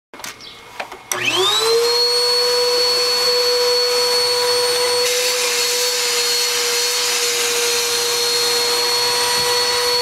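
Bissell PowerForce upright vacuum cleaner switched on about a second in, after a few light knocks: the motor's whine rises quickly to a steady pitch and it runs on evenly with a rushing hiss of air.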